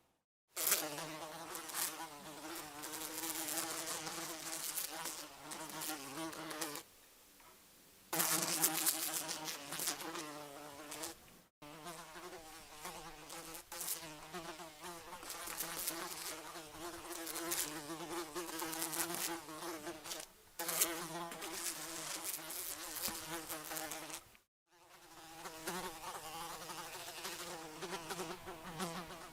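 A fly buzzing: a steady, wavering hum that comes in stretches of several seconds, broken by short breaks and drops in level.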